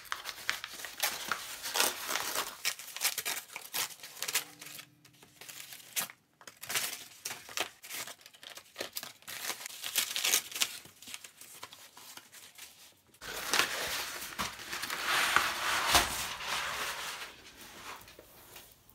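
Brown embossed kraft packing paper being handled, crinkled and torn as it is unwrapped, in irregular rustles and crackles. The rustling and tearing are denser and louder for a few seconds in the last third.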